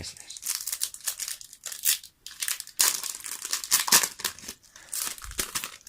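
Foil booster-pack wrapper crinkling in a quick run of short, crackly rustles as a trading-card booster pack is opened.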